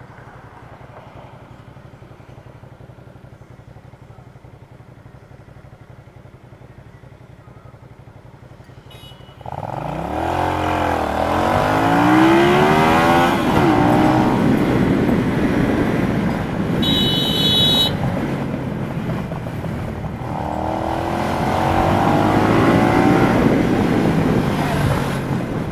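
Cruiser motorcycle engine idling quietly, then pulling away hard about nine seconds in, revving up through the gears with the pitch rising, dropping at each shift and rising again. It accelerates once more near the end. A brief high-pitched beep sounds in the middle.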